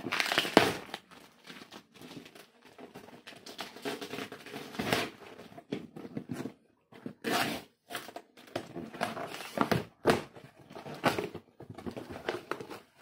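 A taped cardboard shipping box being opened by hand: tape tearing off, cardboard flaps scraping, and packing material crinkling, in irregular bursts.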